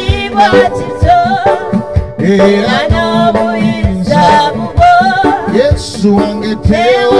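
Live church worship singing: a man leads a Luganda praise chorus into a microphone, with a second voice and instrumental backing of held notes and a steady beat.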